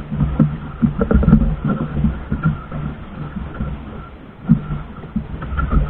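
Low rumbling with irregular thumps on a small outrigger boat at sea: wind buffeting the microphone and choppy water knocking against the hull.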